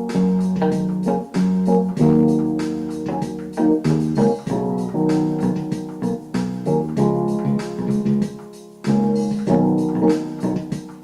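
Instrumental keyboard music: piano and organ tones playing chords and a melody.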